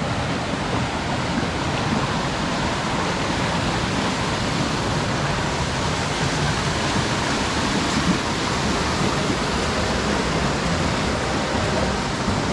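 Steady rushing of fast-flowing stream water.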